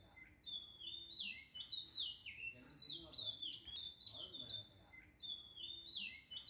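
Birds chirping in short descending phrases over a steady, pulsing high trill, the whole pattern repeating about every five seconds, as in a looped bird-song background track.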